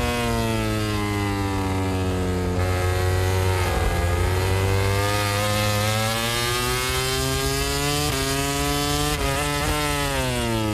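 A MotoGP Honda RC213V's V4 racing engine heard on board the bike. The note falls as the rider brakes and shifts down into a corner, then climbs hard through the gears on the way out, with quick short dips at each upshift, and falls again near the end.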